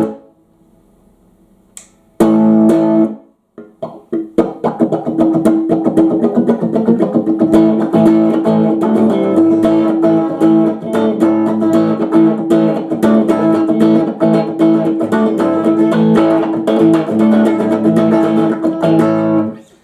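Aria STG series electric guitar played through an amp. A short chord rings about two seconds in, then continuous playing with many quick pick strokes runs from about four seconds in and stops just before the end.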